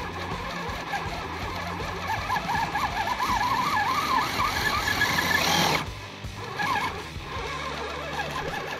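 Axial Bronco RC rock crawler's small electric motor and gears whining as it climbs over rocks, the pitch wavering quickly up and down with the throttle, getting louder about two seconds in and cutting off suddenly a little past halfway.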